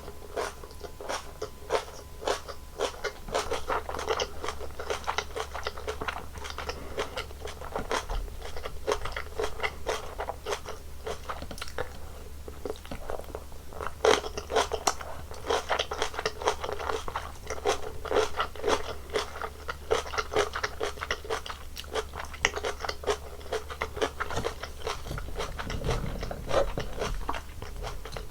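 Close-miked eating sounds: continuous crunching, biting and chewing of a Korean home meal, a dense patter of crisp crunches with no pauses longer than a moment.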